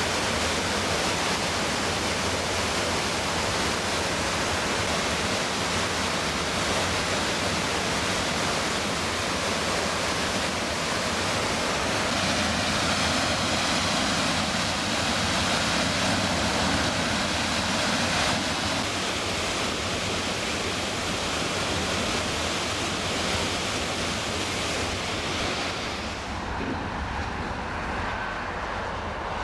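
River Orchy rapids and falls: a steady, dense rush of white water. About 26 seconds in, the water sound cuts off and gives way to a quieter, duller open-air sound.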